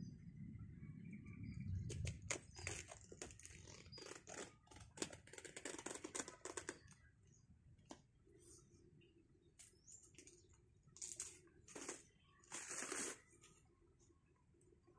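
Dry outer sheath of a felled banana trunk crackling and tearing as it is pulled away by hand: a run of faint crackles for a few seconds, then a couple of separate rustling tears later on.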